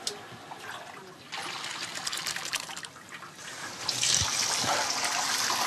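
Herbal plant juice being poured and splashing: a thin trickle at first that grows into a louder, steadier pour about four seconds in.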